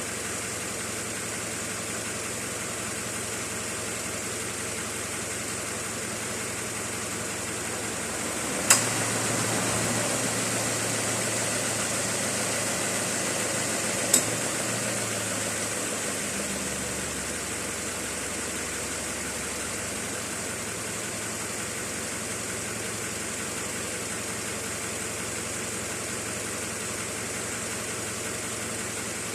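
2015 Subaru Forester 2.0 engine idling with the air conditioning on. About 9 s in, the Valeo DKV-10 vane A/C compressor's clutch clicks in and the compressor runs for about five seconds, then clicks off. It runs without the cicada-like whine, which the owner credits to a change to anti-noise refrigeration oil.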